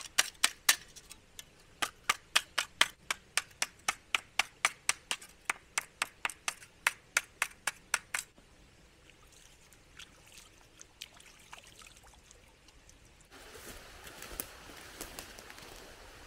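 A stone hammering a flat piece of tin sheet on a rock: a rapid run of sharp metallic taps, about three a second, stopping about 8 s in. About 13 s in the steady rush of a small stream starts abruptly.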